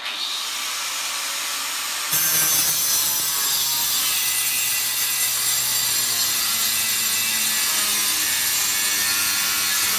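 Angle grinder cutting through the steel drum-brake dust shield on a rear axle. It runs for about two seconds, then gets louder as the wheel bites into the metal, and keeps cutting steadily.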